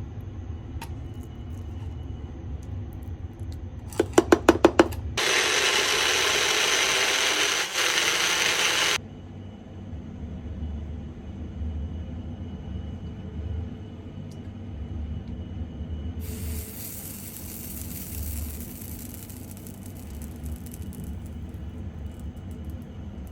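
Electric blender running for about four seconds, after a quick run of clicks. A softer hiss follows some seconds later.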